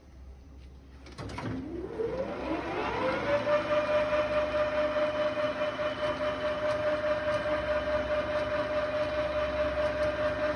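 Mori Seiki 15-inch by 32-inch engine lathe starting up: a click about a second in as the spindle engages, then a whine that climbs in pitch for about two seconds as the chuck comes up to speed and holds steady at running speed.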